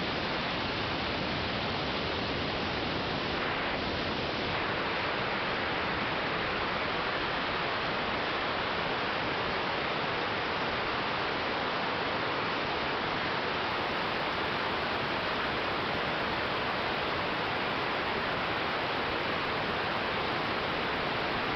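Steady rushing wind noise from the airflow over a microphone on a 1946 Aeronca 7AC Champ in flight, with no distinct engine note standing out.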